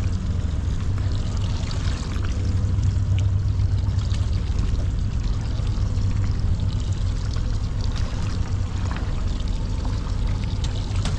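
Water splashing and running alongside a small boat, over a steady low hum.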